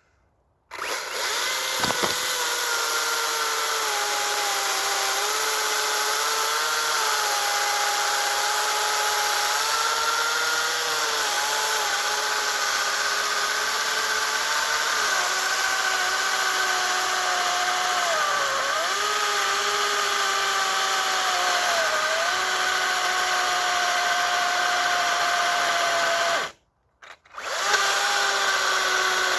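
Makita DUC355 dual-battery cordless chainsaw running and cutting through logs. Its electric motor whine dips in pitch now and then as the chain loads up in the wood. It stops about 26 seconds in and starts again a second later.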